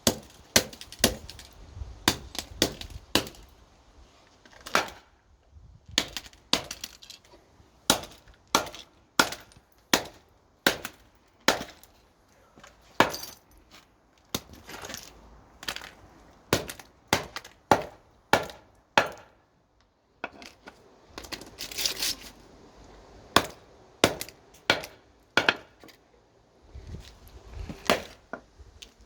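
Claw hammer striking a phone over and over in irregular blows, about one to two a second with short pauses, with the phone's glass and casing cracking and clinking as it breaks apart.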